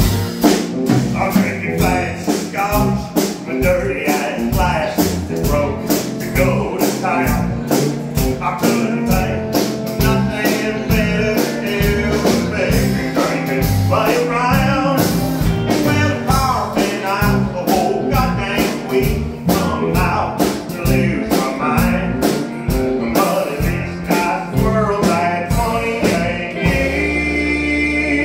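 Live country band playing with drums, bass, electric and acoustic guitars and pedal steel guitar. The drumming stops near the end and the band holds a final chord.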